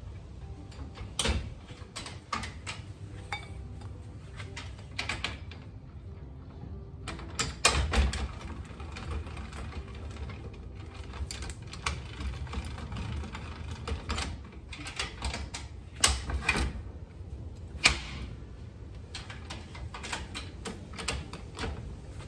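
Irregular metal clicks, taps and knocks of a hand tool working on the steel clamp of an ARK750XO jockey wheel on a trailer drawbar, with a few louder clanks about a second in, around eight seconds and twice near sixteen to eighteen seconds.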